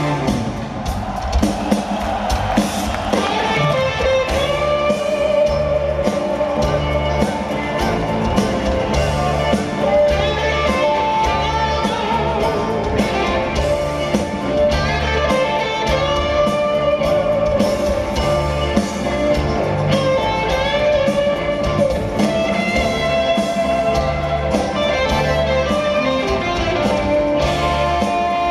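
Live rock band playing: an electric guitar solo with long held, wavering notes over a steady bass and drum groove.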